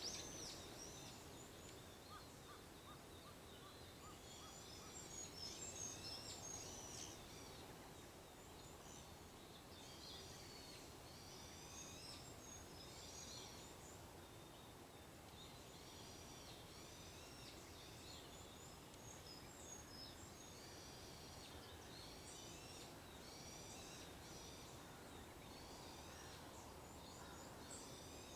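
Faint songbirds chirping and twittering in short repeated phrases over a low, steady outdoor hiss.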